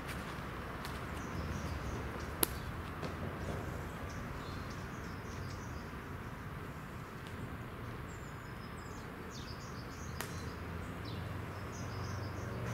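Outdoor background noise: a steady low rumble with faint, high bird chirps, mostly in the second half. A single sharp click about two and a half seconds in.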